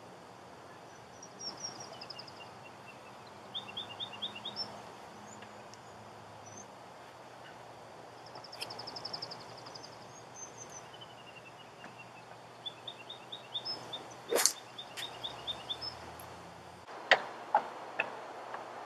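A golf club strikes a teed ball off a turf practice mat once, a single sharp crack about three quarters of the way through. Birds chirp and trill in short repeated phrases throughout, and a few lighter clicks come near the end.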